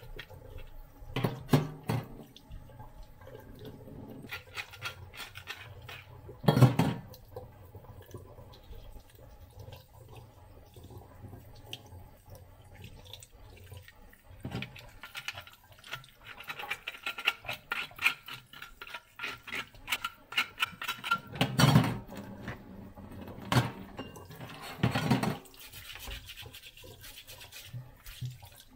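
Tap water running into a stainless steel sink while hands rub and scrub out the inside of a gutted sea bass, with irregular small clicks and a few loud knocks.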